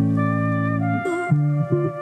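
Background music: long held chords, with shorter notes changing in the second half.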